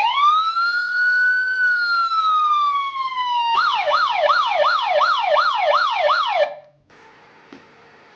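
Electronic siren alarm of a multifunction emergency flashlight, loud: one long wail that rises and slowly falls, then a fast yelp of about three falling sweeps a second, which cuts off about six and a half seconds in.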